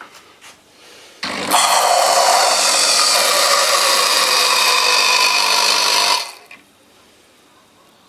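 Nescafe Red Mug coffee machine blowing steam during its first-run flush. A low hum starts about a second in, then a loud, steady hiss of steam runs for about five seconds and stops.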